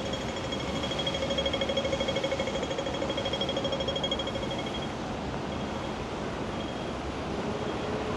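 Train running: a steady rumble with a whine over it that fades out about five seconds in.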